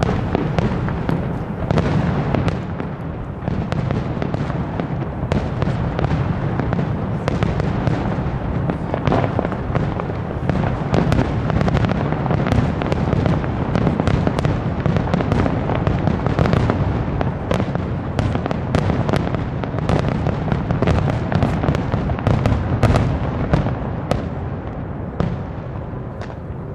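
Fireworks display at its height: a dense, continuous barrage of bangs and crackles over a deep rumble, easing off in the last couple of seconds.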